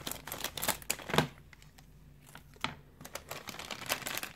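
Crinkly plastic blind-bag packaging being handled and opened: a run of sharp clicks and rustles, loudest about a second in, with a short quiet stretch before more crinkling near the end.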